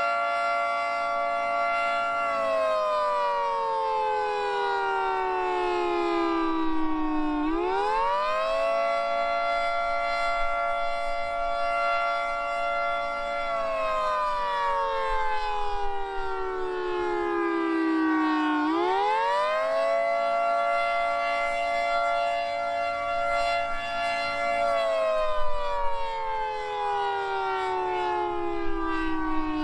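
Federal Signal 2T22 two-tone outdoor warning siren sounding the Attack signal: a steady chord that holds for several seconds, slides down over about five seconds, then swoops back up in about a second, three times over.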